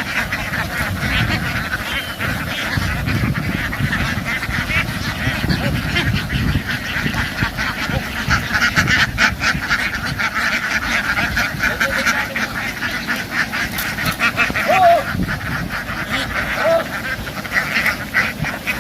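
A large flock of farm ducks quacking all at once, a dense, loud, unbroken chorus of many overlapping calls.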